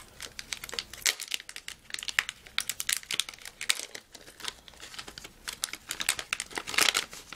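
Plastic anti-static bag crinkling and crackling as its sealed flap is peeled open and the bag is handled: many quick, irregular crackles with no steady rhythm.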